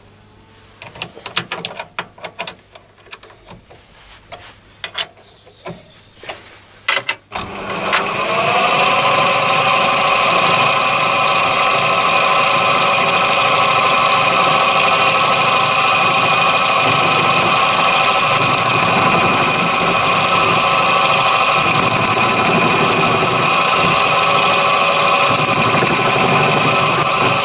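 Scattered metal clicks and knocks as a tool holder is handled and fitted. About seven seconds in, a mini lathe starts up: its motor and gears rise briefly in pitch and then settle into a loud, steady whine.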